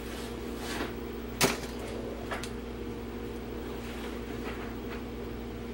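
Small clicks from handling a battery circuit's wires and toggle switch: one sharp click about one and a half seconds in and a fainter one a second later, over a steady background hum.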